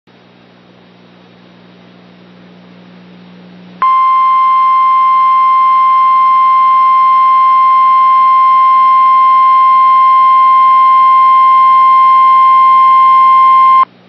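Emergency Alert System attention tone: the National Weather Service's single steady alarm tone, just above 1,000 Hz, sounding loud and unbroken for about ten seconds. It starts sharply about four seconds in after a faint low hum and cuts off abruptly just before the end.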